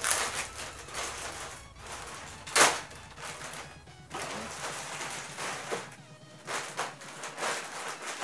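Plastic courier mailer bag rustling and crinkling as hands pull and tear it open, in uneven handfuls, with one sharp, loud crinkle about two and a half seconds in.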